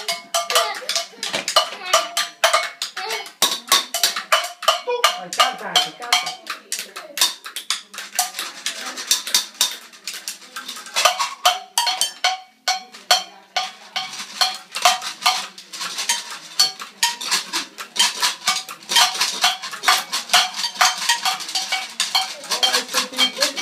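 Improvised kitchen percussion: sticks beating fast and unevenly on small metal dishes and pan lids, each hit ringing briefly, with a stick also striking the strings of a tennis racket.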